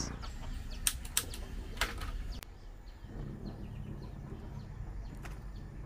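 Long-nosed gas lighter clicking four times in about a second and a half as it lights a gas burner under a wok, with faint bird chirps behind.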